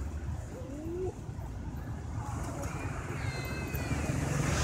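A macaque gives a short, high, wavering squeal about three seconds in, over a steady low rumble.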